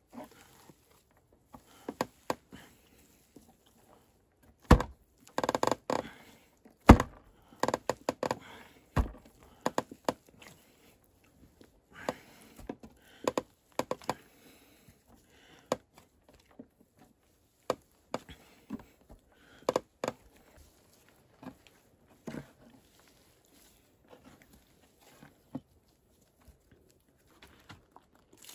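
Hands crumbling and pressing lumps of damp clay soil in a wooden box: soft rustling and crumbling with irregular thuds of clods and hands against the wooden sides, the sharpest knocks about five and seven seconds in.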